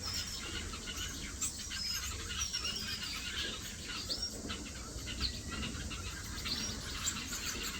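A flock of aviary finches, Gouldian and parson finches among them, chirping and calling: a busy, overlapping chatter of short high calls.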